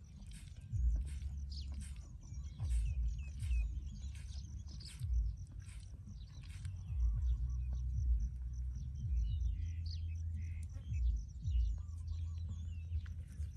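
Wind buffeting the microphone in uneven gusts, with birds chirping repeatedly throughout.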